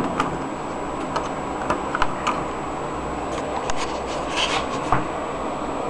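Scattered light clicks and taps, irregularly spaced, over a steady background hiss: a circuit board being handled.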